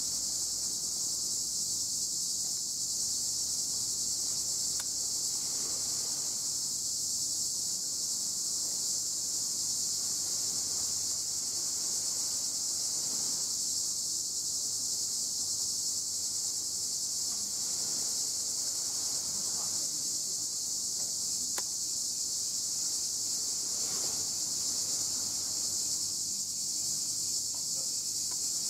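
Cicadas singing in a dense, steady chorus: a continuous high-pitched buzz that never lets up.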